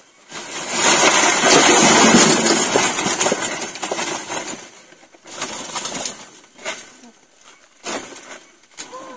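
Loud rustling and scraping of woven bamboo back-baskets loaded with cucumbers being set down on a split-bamboo floor, lasting a few seconds. It is followed by shorter rustles and light knocks as the baskets are shifted and cucumbers are taken out.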